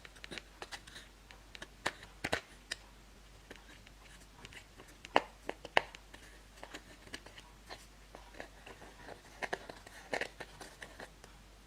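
Slime being squished and kneaded by hand, giving irregular sticky clicks and pops, a few louder ones around the middle and near the end.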